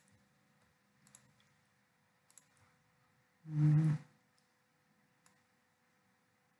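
Computer mouse clicks, single and spread out, over a faint steady hum; about halfway through, one short, loud vocal sound from the person at the computer.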